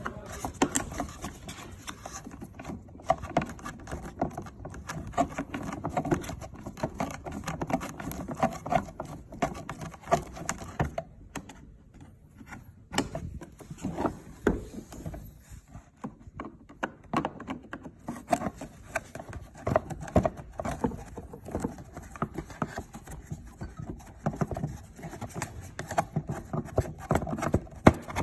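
Rapid, irregular tapping and clattering, many small knocks in quick succession, briefly thinning out about halfway through.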